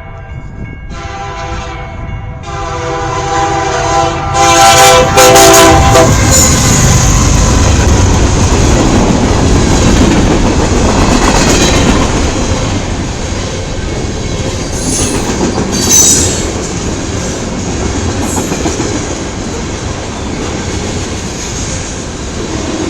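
CN freight locomotive horn sounding three blasts for a road crossing, the last one long, then the lead locomotives and a long mixed freight train passing close by with a loud steady rumble and clatter of wheels and cars, with a few brief high wheel squeals.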